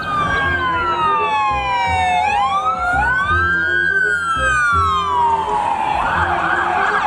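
Police car electronic siren wailing in slow rising and falling sweeps, switching to a fast warbling yelp about six seconds in. Background music with a low bass line runs underneath.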